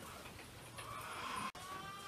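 Faint repeated animal calls, with a brief cut-out in the sound about one and a half seconds in.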